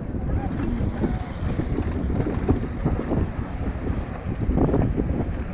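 Wind buffeting the microphone in irregular gusts, over the engines of jet skis running out on the lake.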